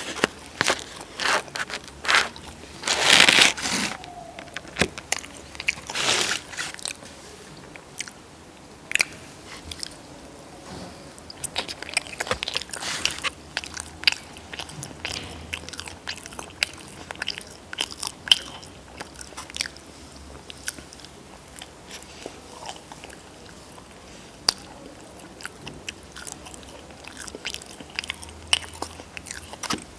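Close-miked eating sounds: bites into crunchy food and chewing, with the loudest crunches a few seconds in and again near the middle, then many small crunching clicks.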